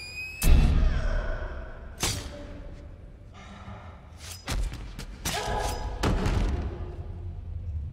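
Film soundtrack impacts: a heavy thud about half a second in, a second sharp hit near two seconds, then a quick run of knocks and bangs in the second half, over a low rumble.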